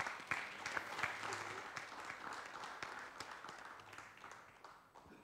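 Applause from the audience and the panelists on stage, starting all at once and dying away over about five seconds.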